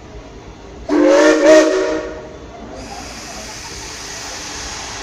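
Small steam locomotive's whistle sounding one blast of about a second, a chord of several tones. Then a steady hiss of steam venting low at the front of the engine, from its cylinder cocks as it readies to move off.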